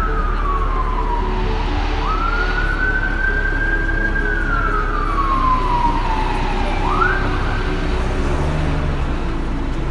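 Emergency vehicle siren wailing over a low city rumble. Its pitch climbs quickly, holds, then slides slowly down over about two seconds; this repeats, and the siren fades out after a last quick climb near the end.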